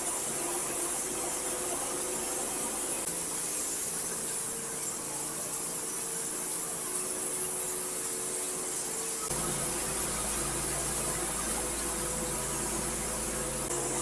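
A large custom-built bandsaw sawmill making its opening cut into a huge maple log: the blade runs through the wood with a steady hiss over the mill's running drone. About nine seconds in, a deeper low hum joins in.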